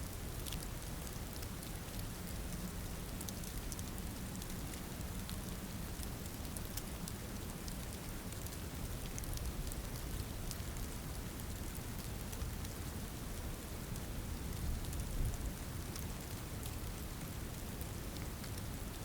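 Snow falling on trees: a steady hiss over a low rumble, with many small scattered ticks like flakes or drops striking branches.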